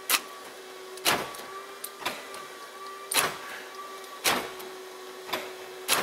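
New power door lock actuator for a 1999 Chevrolet Tahoe's rear door, plugged in and held in the hand, cycling lock and unlock with a short buzzing stroke about once a second. It works, which points to the old actuator as the cause of the dead rear lock.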